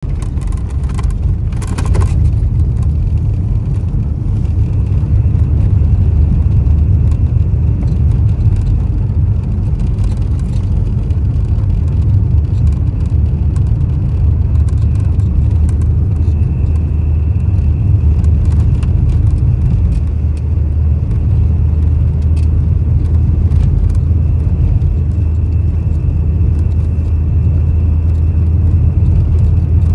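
Car driving on an asphalt road, heard from inside the cabin: a steady low rumble of engine and tyres, with a few brief clicks about two seconds in and a faint high whine that comes and goes.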